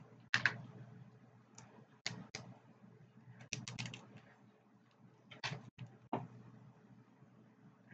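Snow crab legs being cracked and their shells picked apart by hand: irregular sharp clicks and snaps, some in quick clusters of two or three.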